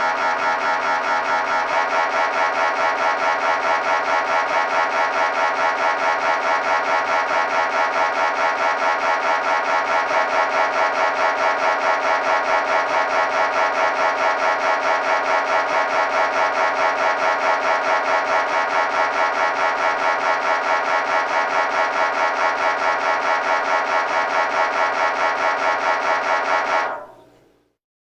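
MRI scanner running a scan sequence: a loud, steady buzzing tone that pulses rapidly and evenly, its pitch shifting slightly about ten seconds in, and stopping abruptly near the end.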